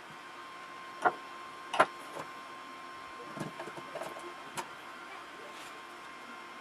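A few short, sharp clicks and knocks of small hard objects, the two loudest about one and two seconds in and several fainter ones after, over a faint steady high hum.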